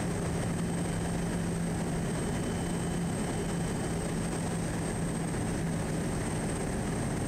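Quest Kodiak 100's PT6A-34 turboprop engine and propeller running at a steady drone on final approach, with a low steady hum under the noise.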